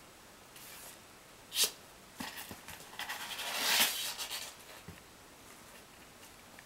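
Kittens wrestling and scrabbling on blankets: a short, sharp scuff about a second and a half in, then about two seconds of scratching and rustling.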